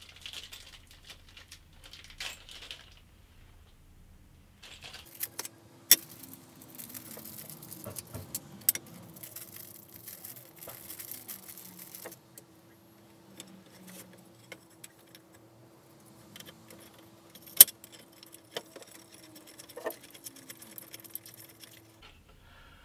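Small metal assembly hardware (bolts, washers and threaded inserts) clinking and jangling as it is handled, with scattered sharp knocks of hardwood workbench parts, the loudest about a third of the way in and again about three quarters through. A faint steady hum runs under most of it.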